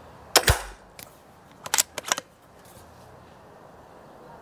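Remington T-Rex pre-charged pneumatic air rifle firing once through its built-in moderator: a single short, sharp report about a third of a second in. About a second later come several light metallic clicks as the bolt is worked to chamber the next pellet.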